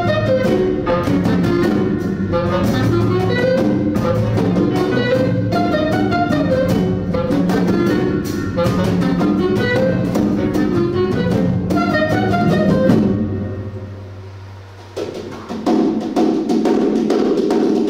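Live jazz quartet playing: clarinet lines over piano, double bass and drum kit with busy cymbal strokes. About thirteen seconds in the band thins out to a held low note, then the drums come back in.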